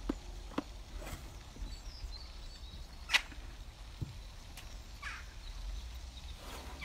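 Outdoor ambience with a steady low rumble and a few scattered sharp cracks and clicks, the loudest about three seconds in, followed by a dull thump about a second later.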